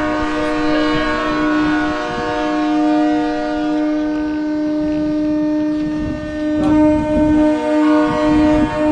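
Boat horns held in one long, unbroken blast as a salute.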